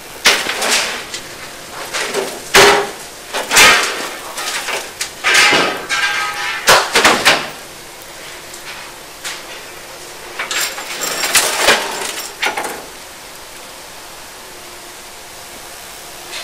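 A string of loud, irregular bursts of rushing noise and sharp knocks for about thirteen seconds, then a steady hiss.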